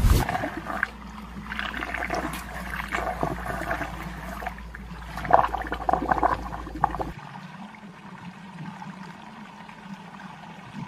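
Water swirling down into a whirlpool vortex, with splashing and sloshing over the first seven seconds or so as a small plastic toy bicycle is dropped into it; after that only a quieter steady rush of water remains.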